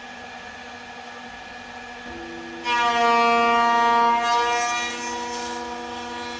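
CNC router running under program control, giving a steady whine of several tones. About two and a half seconds in, a much louder, richer whine cuts in, holds for under two seconds, then eases off and fades down.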